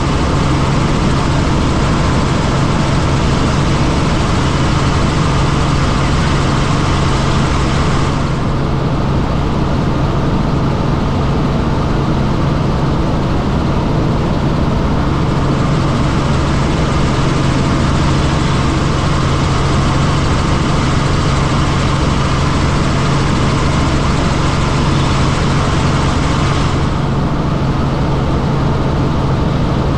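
Helicopter engine and rotor noise: a loud steady drone with a strong low hum. The higher hiss drops about eight seconds in and returns near the end.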